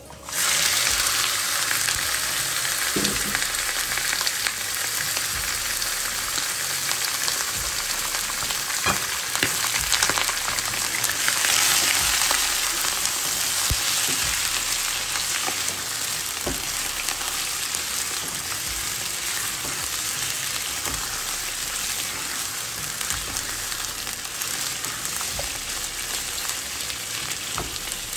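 Raw chicken pieces hitting hot oil and fried onion in a pan, setting off a loud sizzle that starts suddenly and then runs steadily, swelling about eleven seconds in. A wooden spatula stirs and scrapes the pieces as they begin to fry.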